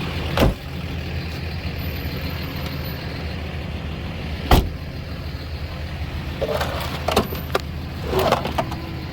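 Car engine idling steadily, with two sharp knocks, one about half a second in and another about four and a half seconds in.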